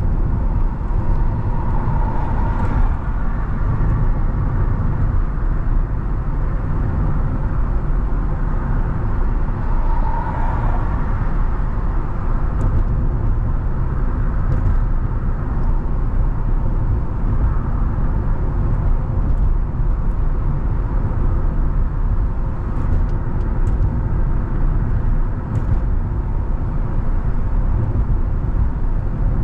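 Car cruising at about 40 mph: steady road and tyre noise with the engine underneath, heard from inside the car. There are two brief swells, about two and ten seconds in.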